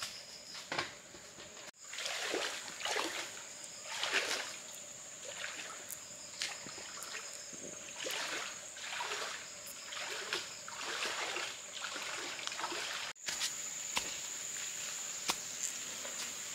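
Water splashing in repeated strokes, roughly one a second, over a steady high insect trill. Near the end the splashing stops and only scattered light clicks and the trill remain.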